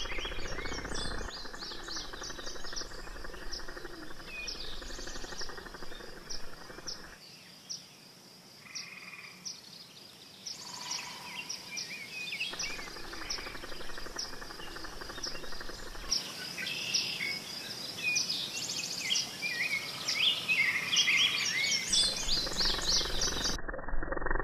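A chorus of birds singing, many short chirps and whistles overlapping, over a steady high-pitched hum. It drops quieter for a few seconds about a third of the way in.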